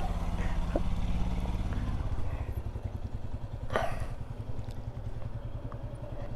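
Motorcycle engine idling with a steady, even low throb.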